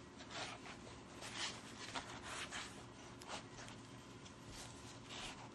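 Faint, irregular rustling and rubbing as a notebook of notes is pushed into a small fabric crossbody bag, the cover scraping against the bag's fabric.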